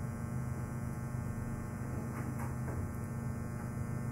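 Steady electrical mains hum, with a few faint soft ticks about halfway through as a small plastic cord clamp and elastic cord are handled.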